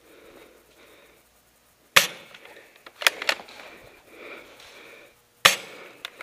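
Spring-powered airsoft rifle shots: two loud, sharp cracks about three and a half seconds apart, with a couple of fainter cracks in between.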